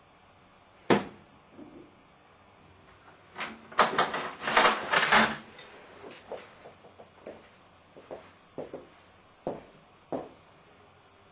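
A sharp knock about a second in, then a dense burst of scraping and clattering as a person gets up from a table, followed by several scattered light knocks.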